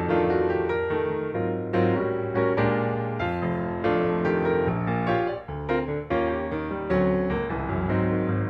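Background piano music: gentle keyboard notes struck in an even, unhurried sequence.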